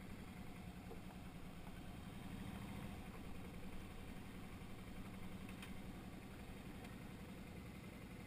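Motorcycle engine running steadily at low revs, a low even drone with a fast regular pulse.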